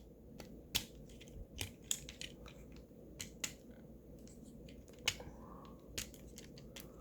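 Plastic parts of a Transformers Studio Series Ratchet figure clicking and tapping as they are handled and tabs are pressed into slots, a scattering of sharp irregular clicks, the clearest under a second in and again about five and six seconds in.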